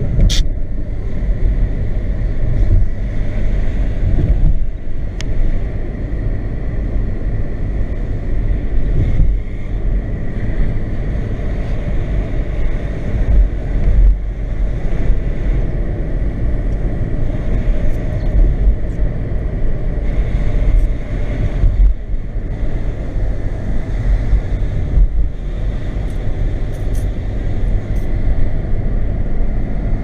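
Car being driven, heard from inside the cabin: a steady low rumble of engine and tyres on the road, with gusts of strong wind buffeting the car and varying the loudness.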